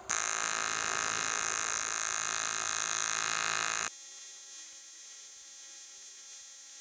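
MIG welding arc burning on a fillet weld at a low 67-ampere setting: a loud, steady buzzing hiss for about four seconds, then the arc cuts off suddenly. The welding machine's quiet hum carries on after it. The setting is too cold for the joint.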